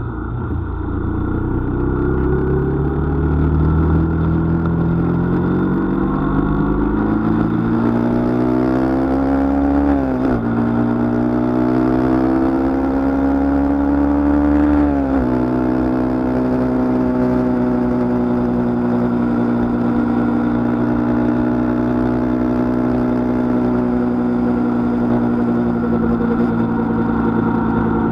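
Onboard sound of a road vehicle's engine accelerating through the gears. The pitch climbs, drops at an upshift about ten seconds in and again about fifteen seconds in, then holds nearly steady at cruising speed.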